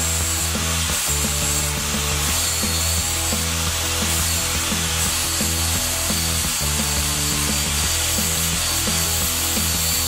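Angle grinder grinding steel, a steady hiss of the disc on the metal, with background music carrying a low bass line that changes note every second or so.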